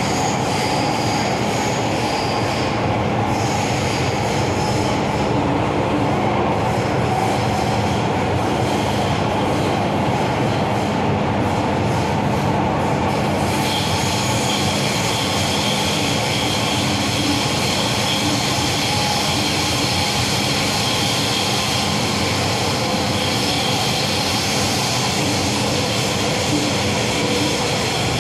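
MTR M-Train metro car running at speed, heard on board: steady rumble of wheels on rail with traction-motor hum. A higher-pitched whine joins about halfway through.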